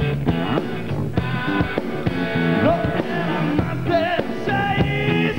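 Rock trio playing live: electric bass and drums drive a steady beat under electric guitar, with a wavering, bending melodic line in the second half.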